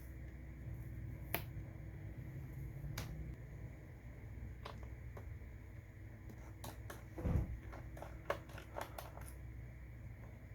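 Small sharp clicks and taps of laptop parts and small tools being handled: a few single clicks, then a quick run of them with one dull knock among them.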